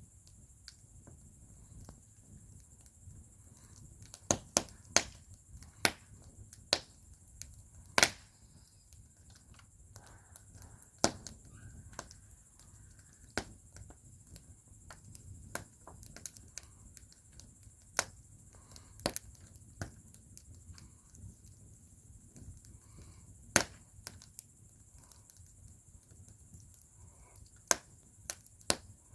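Wood fire in a fire bowl crackling, with sharp snaps and pops at irregular intervals, some close together and some several seconds apart, over a faint steady hiss.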